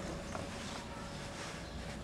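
Faint steady whine from an RC car's 600-size electric motor and Hitec EZX-R speed controller at low throttle as the car creeps forward. It comes in with a click about a third of a second in.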